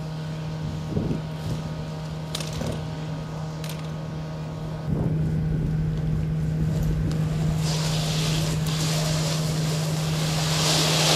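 Steady low hum of an idling fire engine, with a few short knocks early on from the hose line. A scraping hiss of hose dragged over asphalt builds in the last few seconds.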